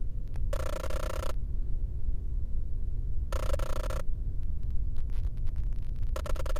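Dark ambient soundtrack drone: a constant low rumble, with a short buzzing swell about every three seconds, three in all.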